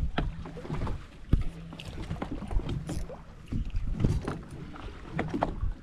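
Background noise on a fishing boat at sea: a low rumble with a steady hum that comes and goes, and scattered sharp knocks and clicks, the loudest about a second and a half in.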